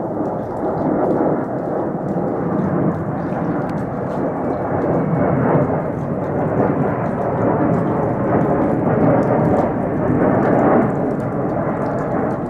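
Boeing 757 jet airliner flying low overhead on approach with its landing gear down, its twin jet engines a steady low rumble that is loudest about ten seconds in.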